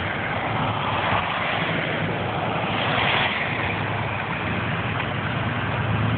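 Car driving on a wet road, heard from inside the cabin: steady tyre and road noise over a low engine hum, swelling around a second in and again about three seconds in.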